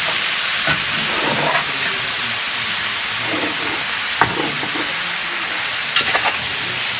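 Tenrec meat, onions and tomatoes sizzling as they fry in a large aluminium pot over a wood fire. A spatula stirs the pot steadily, with a few sharp knocks against the pot.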